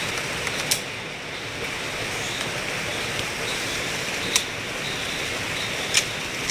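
A few short sharp clicks from the Norinco AK-47 being handled and readied, heard over a steady rushing background noise.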